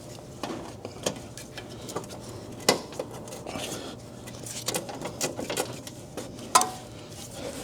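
Scattered metallic clicks and clinks of hand tools and small parts being handled, a few sharper ones standing out, over a faint steady low hum.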